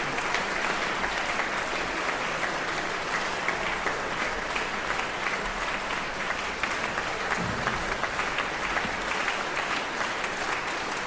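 Concert audience applauding, a dense, even clapping that holds steady throughout.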